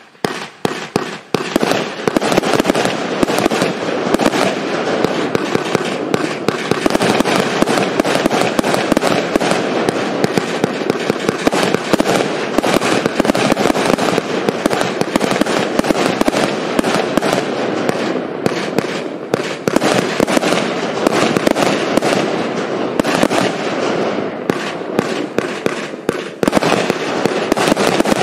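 Super Nova 100-shot compound firework cake firing: a few separate shots, then from about two seconds in a dense, rapid barrage of launches and bursts with no pause.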